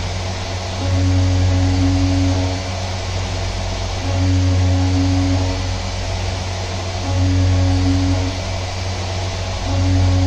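DIY CNC vertical mill's spindle and end mill roughing an aluminium plate under flood coolant: a steady spray hiss with a low droning hum that swells louder for about a second and a half roughly every three seconds as the cutter loads up. The owner blames part of the strange noise on the inside camera's aluminium-rod mount vibrating during the cut.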